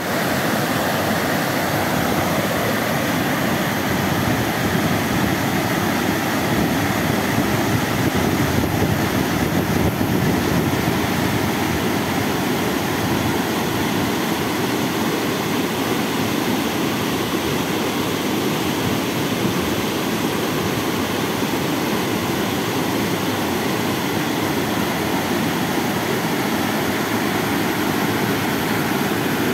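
Whitewater of a mountain river rushing over boulders: a loud, steady roar that holds unchanged throughout.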